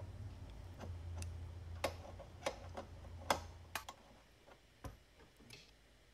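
Ratcheting wrench clicking in a string of short, irregular strokes as a Teflon-taped plug is tightened into the air compressor's regulator port. A low steady hum runs underneath and stops about two-thirds of the way through.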